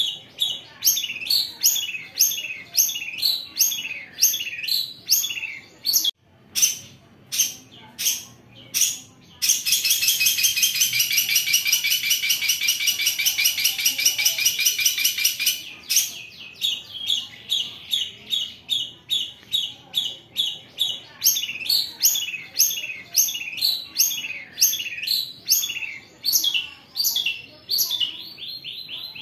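Long-tailed shrike (cendet) singing: a run of sharp, downward-slurred notes about two or three a second, broken about a third of the way in by a loud, harsh rasping trill, the rough 'besetan', lasting about six seconds, after which the sharp notes resume.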